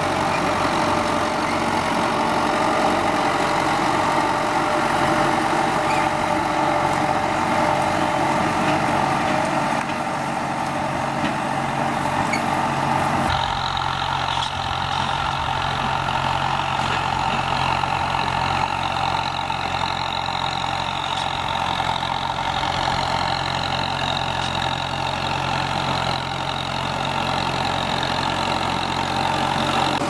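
Kubota M9540 tractor's diesel engine running steadily under load while pulling a disc plough through dry soil. About 13 seconds in, the engine note changes abruptly.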